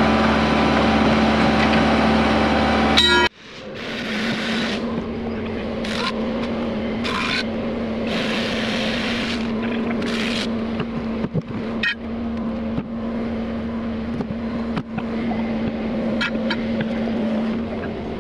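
John Deere 120 excavator's diesel engine running close by with a steady hum, which drops off sharply about three seconds in. After that an excavator engine keeps idling more faintly, with short bursts of hiss and a few light clicks over it.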